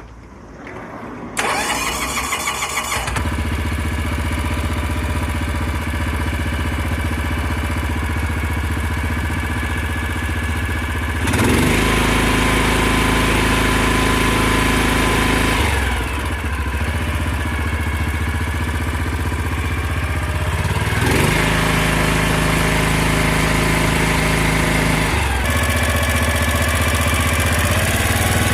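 A cart crane's engine is cranked by the starter for about two seconds, catches and runs. Its speed then steps up and back down several times.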